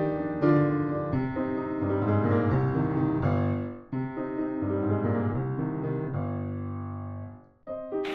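Background piano music: gentle chords and notes played in phrases, pausing briefly twice.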